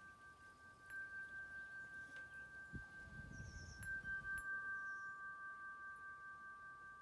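Large metal tube wind chimes ringing softly: two long, steady tones that keep sounding, struck afresh about one second and four seconds in. Faint bird chirps and a brief low rumble come around the middle.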